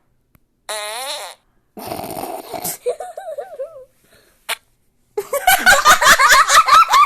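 Fart sound effects played through a phone's speaker from a fart-sound app: a short buzzy one about two seconds in, then a loud, rapid sputtering one in the last two seconds.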